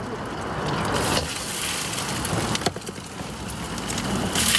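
Food hissing and crackling on a hot street-stall grill, with a sudden louder hiss near the end.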